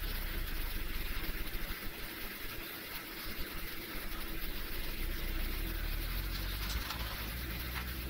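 Airliner cabin noise while taxiing: a steady hiss over the low rumble of the jet engines, with a faint steady hum. The low rumble drops away briefly around two to three seconds in.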